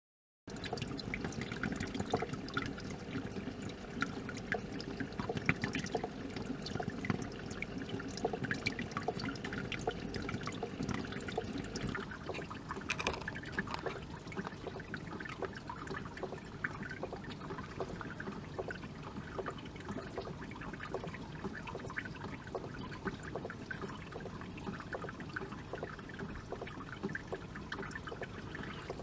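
Water running and trickling steadily, with many small splashes and drips. It starts abruptly just after the beginning.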